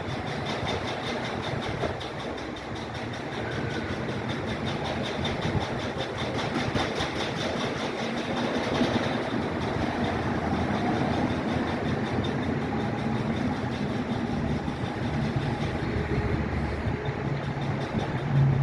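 A garage door shaking and rattling as it runs: a steady mechanical rumble with a fast, even ticking that fades about halfway through, and a low hum that grows near the end.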